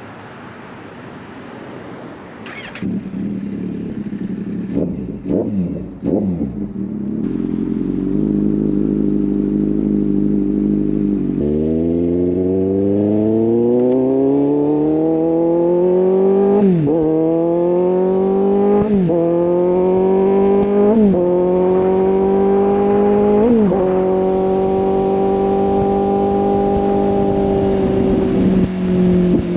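Kawasaki Z800's inline-four engine through a full exhaust system, revved a few times, then pulling away and accelerating hard through four upshifts, each a sudden drop in pitch, before holding a steady cruise.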